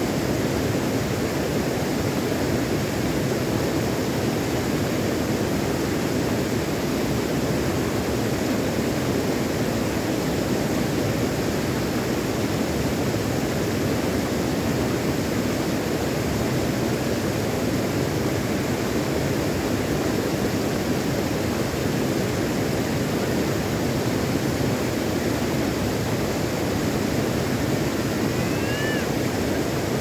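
Shallow stream running over stones: a steady rush of water. Near the end comes one brief high chirp that rises and falls.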